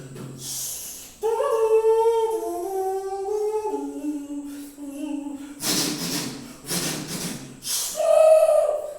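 A voice imitating music by mouth: a hummed tune that steps downward in pitch, then about three breathy hissing bursts, and a short sung note near the end.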